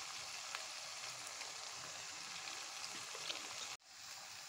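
Onion, tomato and chilli-powder masala frying in oil in a pan, a steady faint sizzle with a few light ticks of the spatula stirring. It cuts out abruptly a little before the end, then comes back slightly quieter.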